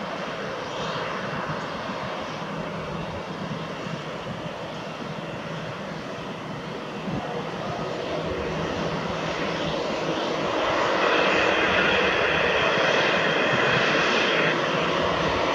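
Airbus A320-214 airliner's CFM56 jet engines running at taxi power as it taxis, a steady roar with a high whine that grows louder about ten seconds in.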